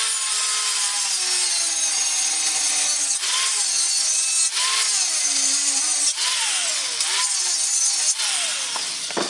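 Angle grinder with a thin cut-off disc grinding into the steel inner bearing race pressed onto a wheel hub, cutting a groove so the race can be split off. A loud, continuous grinding hiss, with the motor's whine sagging and recovering several times as the disc is pressed into the cut; it stops at the very end.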